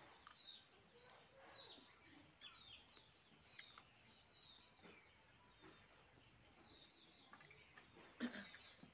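Faint small birds chirping in the background, with short high chirps repeating throughout. There are a few soft clicks, and a brief louder noise about eight seconds in.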